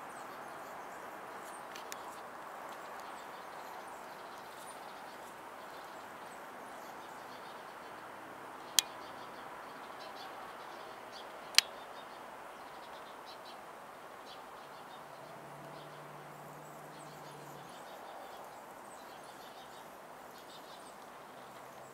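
Outdoor ambience: a steady hiss with faint, scattered high bird chirps. Two sharp clicks about three seconds apart near the middle are the loudest sounds.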